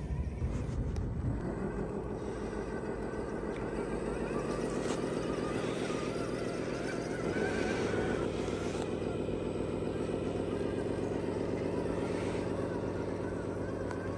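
RC4WD Land Rover D90 scale crawler's electric motor and gear train whining steadily as it drives, with a slight shift in pitch about seven seconds in.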